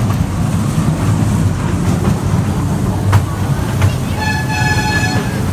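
Toy ride train running on its track, heard from on board: a steady low rumble with a couple of sharp clicks from the rail. Near the end a steady high tone with several overtones sounds for about a second.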